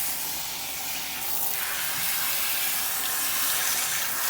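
Bath sprayer running in a steady hiss, rinsing water over a dog's coat.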